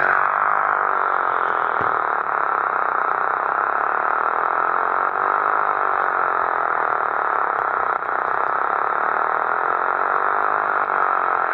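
Electric-motor-driven 3D-printed siren sounding a steady, airy wail. Its pitch wavers slowly up and down.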